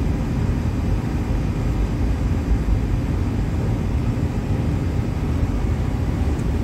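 Steady low machinery rumble with a faint hum over it, unchanging throughout.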